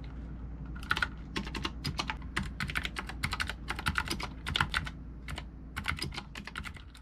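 Typing on a Skyloong mechanical keyboard: a fast, irregular run of key clicks, several a second, starting about a second in.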